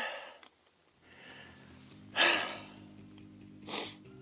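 A man's heavy, excited breathing: a loud gasping breath about two seconds in and a short sharp breath near the end, his heart still pounding. Faint steady background music comes in about a second in.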